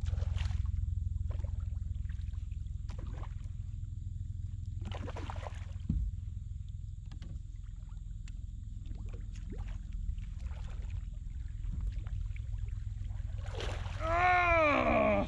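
Splashing at the side of a kayak as a hooked smallmouth bass thrashes at the surface while being landed, after scattered small water and tackle noises. Near the end a man's voice rises and falls in a drawn-out cry, the loudest sound, over a steady low rumble.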